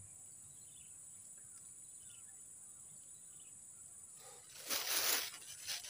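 A steady, high-pitched drone of insects in a swamp. About four and a half seconds in there is a brief rush of noise lasting under a second, followed by a smaller one.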